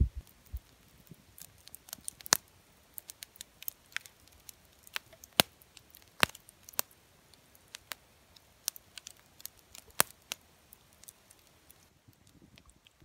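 Campfire crackling: irregular sharp pops and snaps from burning logs, a few louder ones among many faint ticks.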